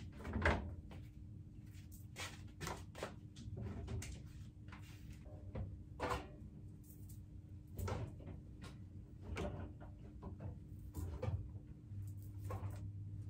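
Irregular clunks, knocks and clicks of a tumble dryer's door and lint filter being handled and laundry being moved in and out of a wire basket, the loudest knock about half a second in. A steady low hum runs underneath.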